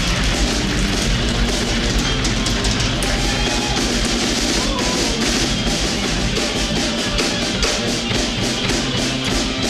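Live rock band playing, a drum kit keeping a steady beat under electric guitar.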